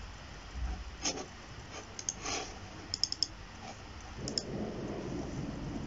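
Computer mouse buttons clicking: scattered single clicks, with a quick run of three about three seconds in.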